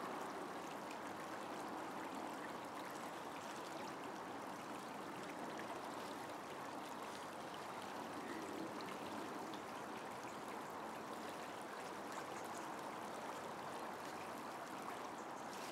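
Steady rush of flowing river water, an even wash of sound with no change in level.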